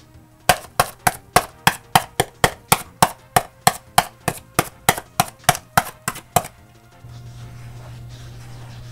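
A fast, even run of sharp wooden knocks, about three and a half a second and some twenty in all, played as a Foley sound effect. They stop about six and a half seconds in, and a low steady hum carries on after them.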